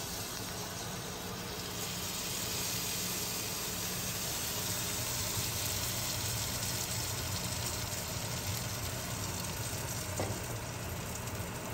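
Pancake batter and butter sizzling in a hot frying pan, a steady hiss that grows about two seconds in as the batter is poured, with a low hum underneath.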